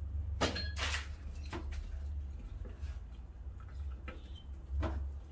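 A few short knocks and scrapes as a hanging goat carcass is skinned by hand, over a low steady hum.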